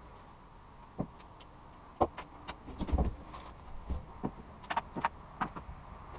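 Irregular metallic clicks, taps and knocks of hand tools and parts being handled while reassembling a Cub Cadet mower engine's carburetor.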